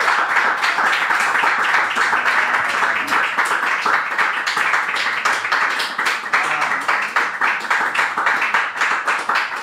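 Applause: a group of people clapping steadily at the end of a song.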